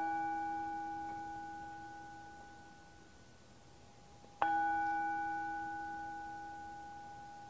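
A small bell struck twice, about four and a half seconds apart, each strike ringing out with a clear tone and fading slowly. It is rung to open a closing prayer.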